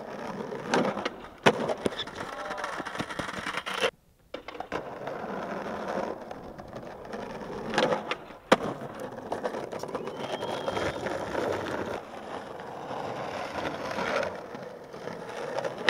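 Skateboard wheels rolling over rough concrete, with sharp board clacks, loudest about one and a half seconds in and again near the middle, where the board hits a concrete ledge during a trick.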